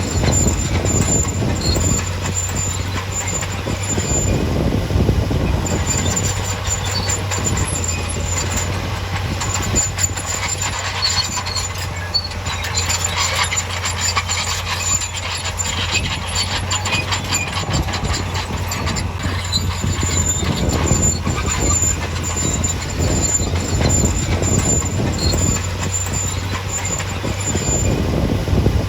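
Bulldozer's diesel engine running steadily under continuous metallic clatter and squeaking from its steel crawler tracks, with a thin high squeal that comes and goes.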